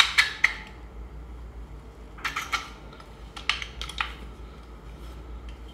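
Handling of a PCP air rifle: short clicks and knocks from its metal and plastic parts, in three small clusters, at the start, about two seconds in, and around three and a half to four seconds in.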